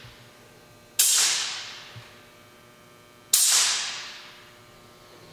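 Two sudden bursts of compressed air from the Ritter R275E frame clamp's pneumatic clamps being worked, each a sharp hiss that fades out over about a second, the second burst a couple of seconds after the first.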